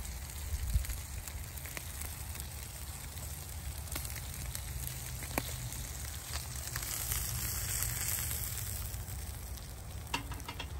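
Charcoal fire crackling under wire grill baskets of fish, with fat sizzling on the coals and scattered sharp pops over a steady low rumble. A few metallic clicks near the end as a grill basket is handled.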